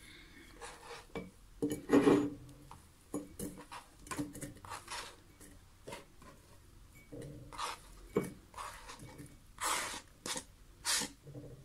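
Chopped onion pieces being put into a glass jar: a string of irregular knocks and light clinks against the glass, some louder than others.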